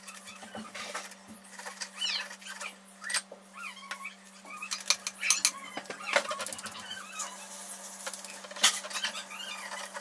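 Silver chain links and small metal hand tools clinking and scraping against each other in irregular, light knocks, with a few small squeaks, over a steady low hum.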